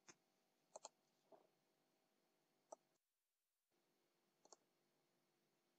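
Near silence: faint room tone with a few short, faint clicks scattered through it, one of them a quick double click.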